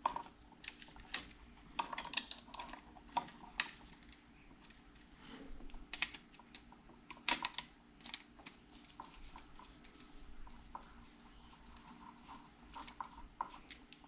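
Scattered light clicks and taps of a screwdriver and wire being handled as the ground wire is fastened to an electrical outlet.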